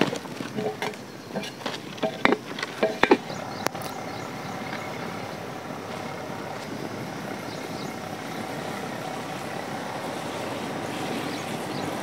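A handful of short knocks and clatters as a large aluminium cooking pot is set down onto a brick hearth over a wood fire, followed by a steady, even noise that runs on for the rest.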